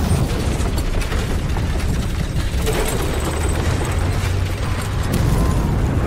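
Film sound effects for a spherical balloon gondola and its rope rigging: a steady low rumble with scattered creaking and rattling clicks.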